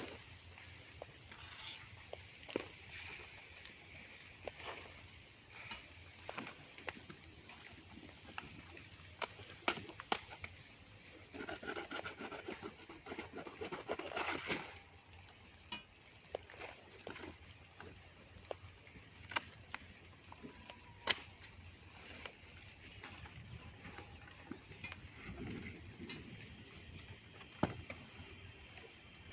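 Insects, likely crickets, keeping up a steady high-pitched drone that breaks off briefly twice and fades to a fainter level about two-thirds of the way through. Over it come scattered sharp clicks and rustles of a banana leaf being cut and handled.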